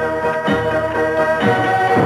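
Instrumental film-score music with held notes over a steady low line; the melody moves to new notes about three-quarters of the way through.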